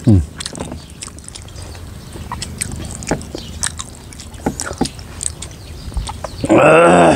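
Eating by hand from metal plates: scattered light clicks and scrapes of fingers on the plates, with chewing. There is a short loud sound falling in pitch at the start, and near the end a loud pitched cry with a wavering pitch lasting under a second.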